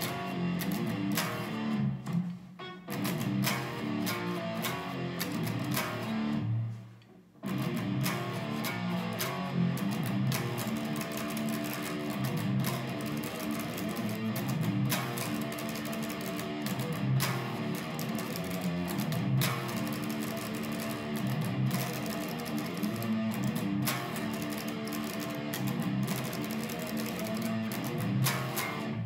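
ESP LTD EC-1000 electric guitar being played, a continuous run of riffs and chords. It stops briefly about six seconds in, then carries on.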